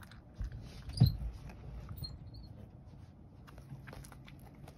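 A cat eating dry kibble from a wooden tray: small crunching sounds, with one louder knock about a second in.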